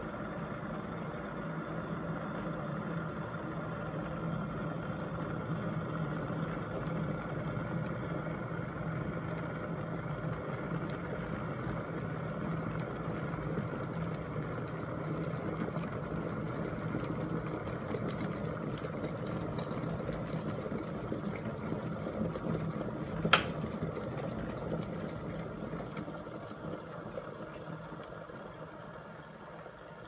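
A 1.8-litre Hoffen glass electric kettle at a rolling boil: a steady bubbling noise with a low hum. About 23 seconds in, a single sharp click as the kettle's thermostat switches it off at the boil, and the boiling dies down over the last few seconds.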